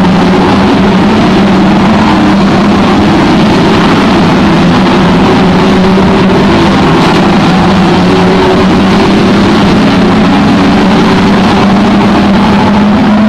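Many saloon stock car engines racing together around an oval track: a loud, steady engine din with no break.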